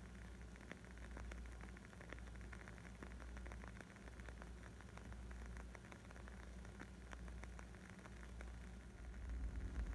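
Wood fire crackling: many small, irregular pops and snaps over a low steady rumble, which swells near the end.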